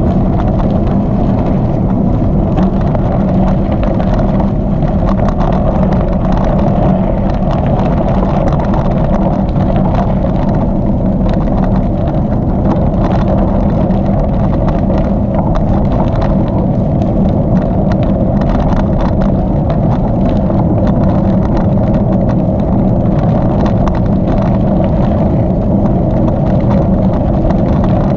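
Steady rolling noise of a bicycle ridden on a hardpack gravel trail, with wind buffeting the microphone and frequent small clicks and rattles from the tyres and bike.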